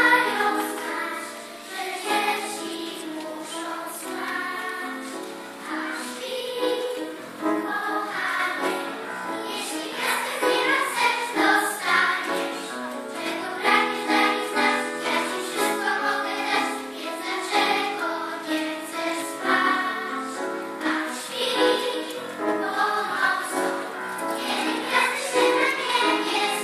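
Children's choir singing a lullaby with piano accompaniment.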